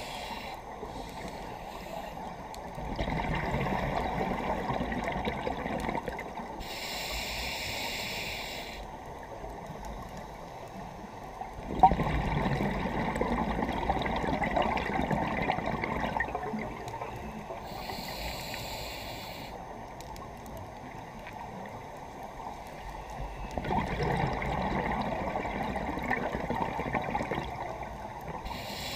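Scuba diver breathing through a regulator, three slow breaths: each short hissing inhale is followed by a longer rush of exhaled bubbles. A sharp click sounds at the start of one exhale, about halfway through.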